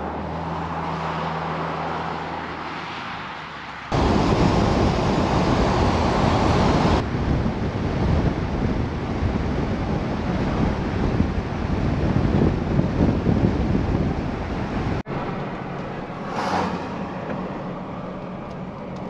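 Wind on the microphone over waves at a clifftop above the sea. After about four seconds it gives way abruptly to louder wind and road noise from the moving Toyota Tacoma pickup, which drops near the end to a quieter steady hum.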